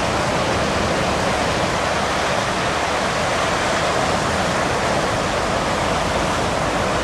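Steady rushing roar of breaking ocean surf.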